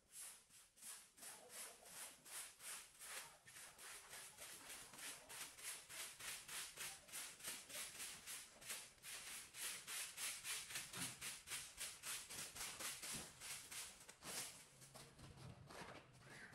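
Straw broom sweeping a tiled floor in quick, even strokes, about three a second, each stroke a short brushing hiss.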